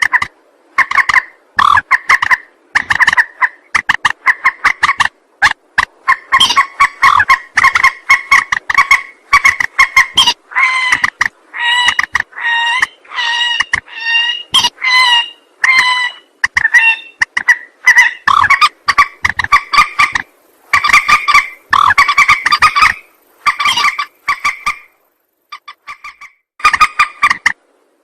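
Mandar (rail) lure call recording. The bird repeats rapid runs of short pitched notes in bouts a second or two long, with short gaps between them and a longer lull near the end.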